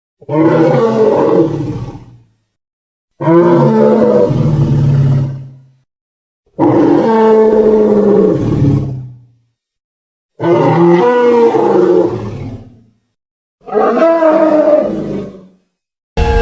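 A series of dinosaur-style roar sound effects, most of them made from elephant roars: five separate roars of two to three seconds each with silence between them, and a sixth beginning at the very end.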